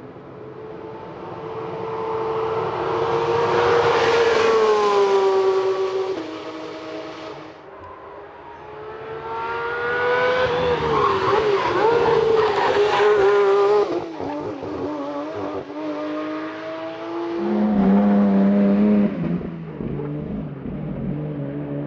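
Porsche 911 GT3 RS prototype's 4.0-litre flat-six at high revs on a racetrack, swelling as the car comes closer. Its pitch climbs under acceleration and then drops as the revs fall, over several passes in a row. The second pass breaks off suddenly about two-thirds of the way through.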